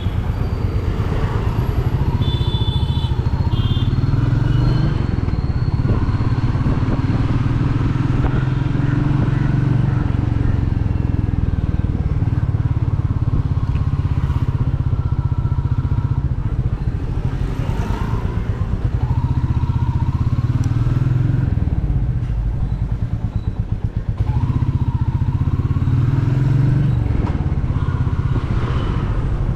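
Royal Enfield Meteor 350's single-cylinder engine and exhaust while riding, the engine note rising and falling several times as the bike accelerates and eases off.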